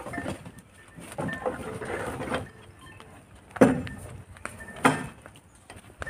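Two sharp knocks a little over a second apart, the first slightly louder, over a faint background.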